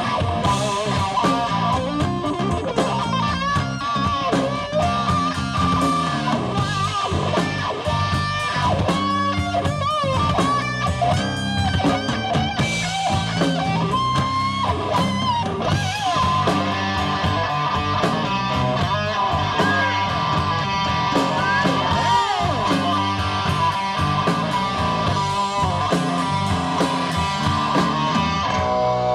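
Live blues-rock band: a lead electric guitar solo on a Les Paul-style guitar through Marshall amplifiers, with bent and wavering notes, over drums and bass guitar.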